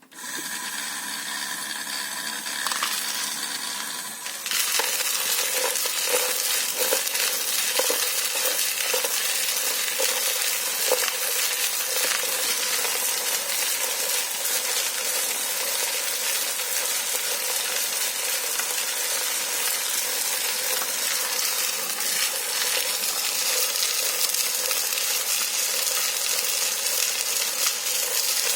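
Small benchtop tumbling machine starting up: at first only its motor hums, then about four seconds in a dense, steady rattle and clinking of small metal parts tumbling inside it begins and keeps going.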